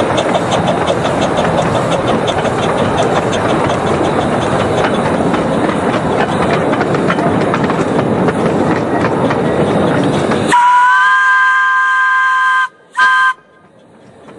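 Miniature steam railway train running, a steady rushing noise with faint fast ticking. About ten seconds in the sound changes suddenly to the locomotive's steam whistle: a long chord of several pitches, then a short second toot.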